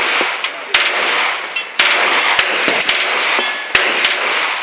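Glock pistol fired several times, three loud shots about a second or two apart, each trailing off in a ringing, echoing tail.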